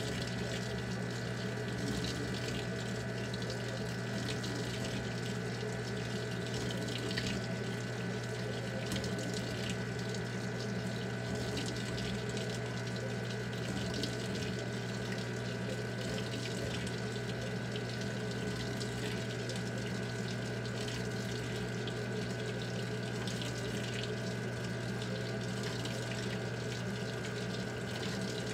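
Maytag top-load washing machine filling: a stream of water pours steadily from the fill inlet into the tub onto wet cloths. A steady low hum runs underneath.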